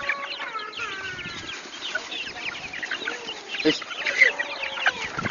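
A flock of chickens clucking and squawking, many birds calling at once as they crowd after a sack of corn.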